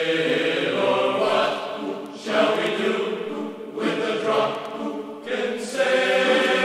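Background music of voices singing a choir-like chant in long held notes, the phrases changing every second or two.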